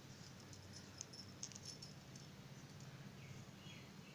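Faint, scattered light clicks of beads and a crochet hook knocking together as beaded crochet lace is worked by hand, over a low steady hum.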